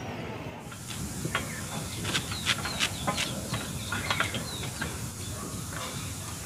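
Small birds chirping again and again, with light clicks and taps of a kitchen knife cutting green onions over a steel plate.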